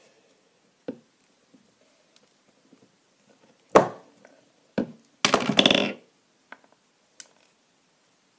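Metal pliers cutting a plastic mechanical-pencil part, with a few small clicks and a sharp snap about four seconds in. A second later comes a short, loud clatter of metal on a wooden tabletop.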